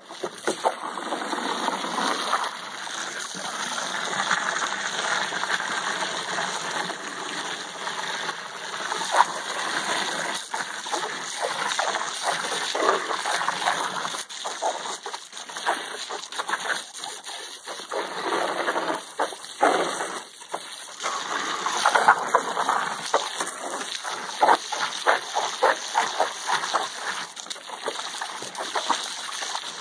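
Garden hose jet spraying into a shallow plastic kiddy pool while two dogs bite at the stream and splash in the water, giving a steady rush of spray broken by uneven splashes.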